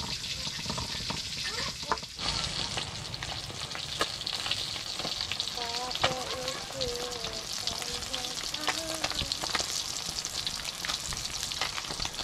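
Fish frying in hot oil, a continuous sizzle with many small crackles and pops as it browns. It is near done.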